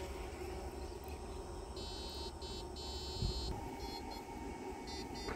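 Buzzing insect calls in short pulsed phrases, one longer stretch in the middle and a quick run of short pulses near the end, over a low rumble.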